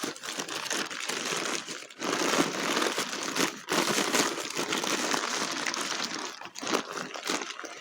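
Packing paper crinkling and rustling in a continuous crackle with a few brief pauses, as a wrapped crystal is unwrapped by hand.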